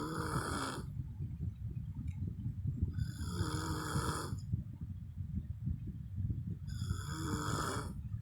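A woman snoring in her sleep, a slow rhythm of snores about every three and a half to four seconds: the tail of one at the start, then two more, each a rasping buzz with hiss. A low rumble runs underneath.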